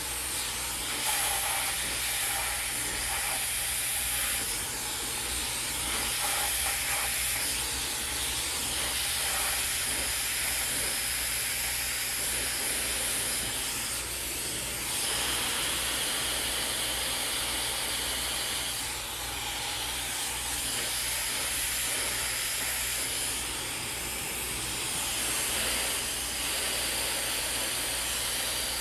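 Dyson Supersonic hair dryer blowing steadily on hair pulled over a round brush: a loud airy hiss. It dips briefly a few times and changes tone for a few seconds midway as the dryer is moved along the section.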